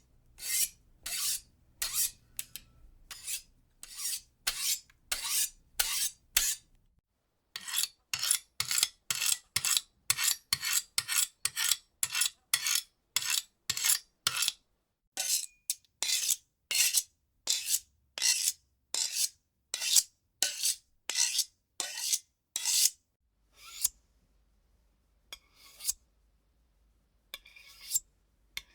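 Knife blade being sharpened: crisp, metallic strokes along the blade, about two a second. They pause briefly about seven seconds in, run on steadily, then thin out to a few scattered strokes near the end.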